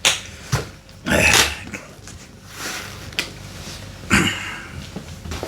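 Latches of a hard-shell guitar case being clicked open and the case handled: a few sharp clicks, with louder scraping bursts about a second in and about four seconds in.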